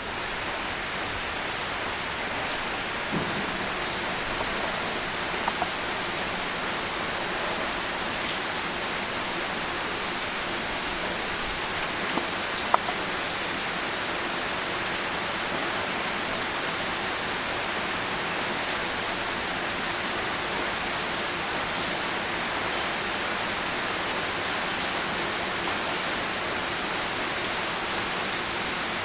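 Steady rain falling, an even hiss with no let-up, broken by a few short sharp ticks; the loudest tick comes about thirteen seconds in.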